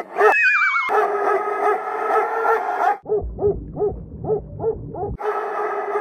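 A dog's single-woof sound effect put through editing effects. It plays first reversed and smeared together, with a short falling electronic tone near the start. Then it comes as a rapid run of muffled barks, about three a second, over a low rumble for an underwater effect, and near the end as a long echoing wash for a cave effect.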